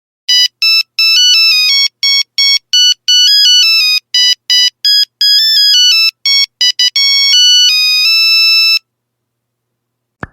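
A high-pitched electronic Christmas ringtone: a quick melody of short, clean beeping notes, the last few held longer, stopping about nine seconds in.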